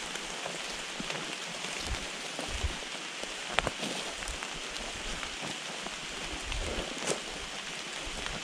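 Light rain falling on the forest leaves: an even hiss with scattered sharper drop clicks and a few low thuds.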